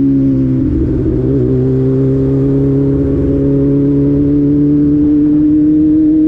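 Vehicle engine held at steady high revs, its pitch dipping briefly about a second in, then slowly climbing.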